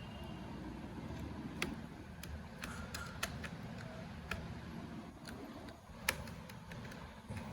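Irregular light clicks and taps of a small screwdriver and screws while the laptop's remaining screws are fitted, about ten in all. A steady low rumble lies underneath.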